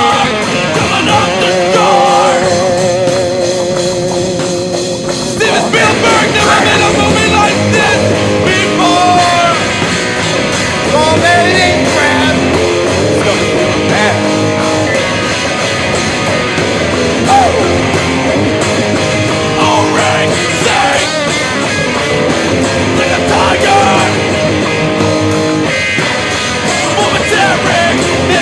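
Loud punk rock music with electric guitar and singing, playing throughout; a wavering held note stands out about two seconds in and stops about five seconds in.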